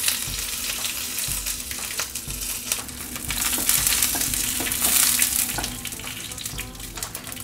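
Tempering in hot oil in a nonstick frying pan: freshly added curry leaves, dried red chillies and mustard seeds sizzling and spitting, stirred with a wooden spatula. The sizzle swells about a second in and again around four to five seconds in.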